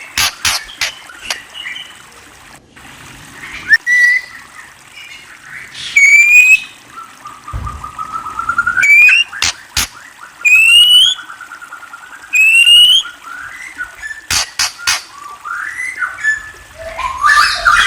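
A murai (Copsychus songbird) singing: four loud, clear, rising whistled notes spread through the middle, a softer warbling trill between them, and a jumble of varied notes near the end. Sharp clicks come at the start and a couple more in between.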